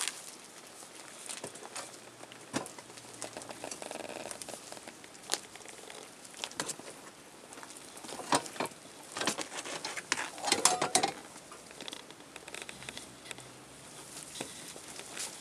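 Collie puppies scuffling and wrestling on padded floor sheets: scrabbling paws, light knocks and crinkling of the pads. The scuffle is busiest and loudest between about eight and eleven seconds in.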